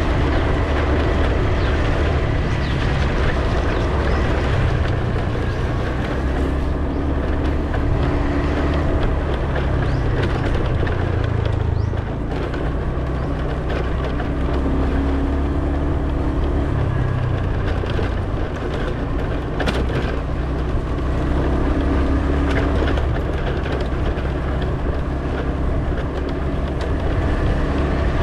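A vehicle on the move: steady low engine and road rumble, with the low pitch shifting a few times as speed changes.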